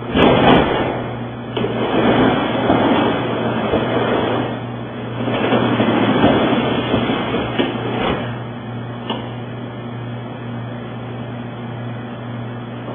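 A TKO impact-resistant sectional door being reset in its side tracks and then run open and shut, its panels rumbling and rattling as they move, with a few sharp knocks. A steady low hum runs underneath.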